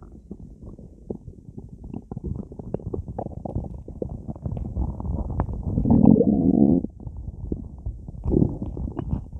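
Human stomach gurgling and rumbling, bloated with a large amount of soda, with a steady run of small pops and bubbling. A louder, longer gurgle comes about six seconds in and stops abruptly, and a shorter one follows near the end.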